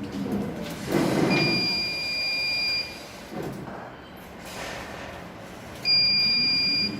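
Arduino alarm buzzer beeping twice with a steady high tone: a beep of about a second and a half, then a shorter one near the end. The ultrasonic sensor has detected someone in front of it, and the alarm is triggered.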